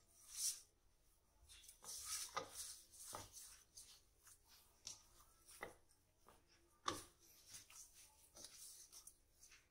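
Hands kneading a soft wheat-flour and semolina dough in a plastic bowl: faint, irregular squishing and rubbing, with a few louder presses about half a second in, around two to three seconds, and near seven seconds.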